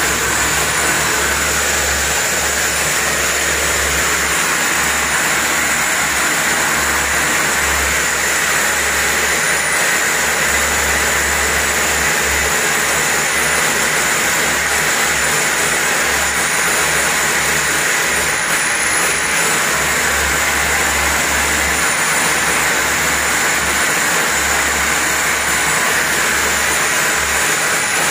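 Electric drill boring a hole through a masonry wall, running continuously under load: a steady high whine over a rough grinding noise that starts suddenly and holds without a pause.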